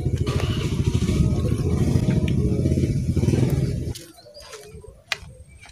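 An engine running steadily close by, a dense low rumble that cuts off abruptly about four seconds in. Much quieter outdoor sound follows, with a single sharp click.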